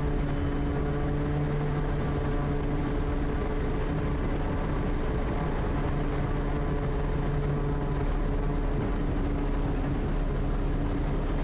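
Quest Kodiak's turboprop engine and propeller running steadily at takeoff power during the takeoff roll on a grass airstrip: a constant drone with steady tones.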